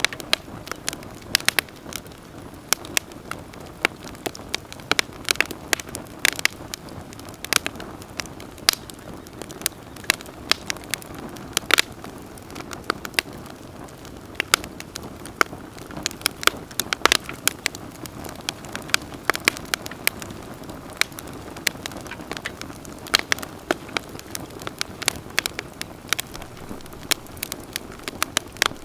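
Wood campfire crackling: frequent sharp, irregular pops and snaps over a steady low hiss of burning.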